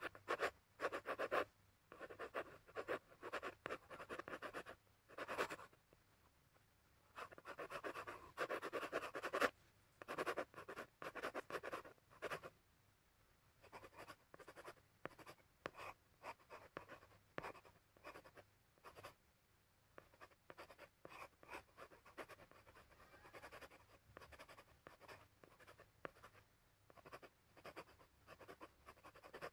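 Coloured pencils scratching on paper in quick, irregular shading strokes, stronger for the first twelve seconds or so, then lighter and fainter after a brief pause.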